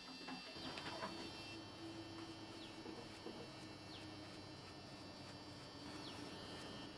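Faint outdoor ambience: a bird gives a short falling chirp four times, a second or two apart, over a low steady hum.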